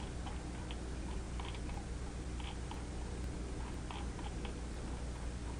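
Faint, irregular clicking of a computer mouse being used to scroll and click through the program, over a steady low electrical hum.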